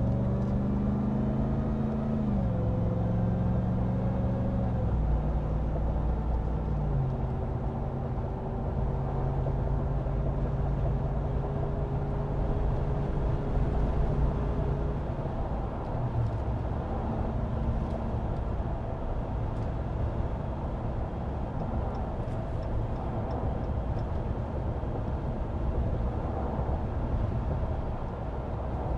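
Inside the cab of a 2022 Ram TRX on the move: the supercharged 6.2-litre Hellcat V8 drops in pitch in a few steps during the first seven seconds as the transmission upshifts, then holds a steady drone. Heavy road noise from the 35-inch tyres on a rough, washboarded road runs under it.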